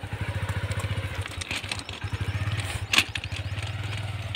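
Motorcycle engine running at low speed with a steady, rapid putter as the bike crawls over loose railway ballast, with stones crunching and a sharp knock about three seconds in.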